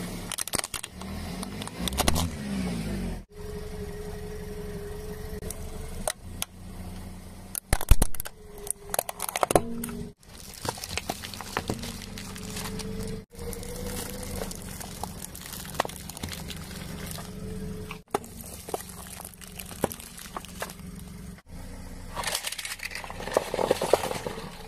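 A car's tyre rolling onto and crushing plastic toys, a toy car among them: crackling, snapping and crunching plastic over the car's steady idling engine. The loudest cracks come about eight seconds in, and the sound breaks off abruptly several times between takes.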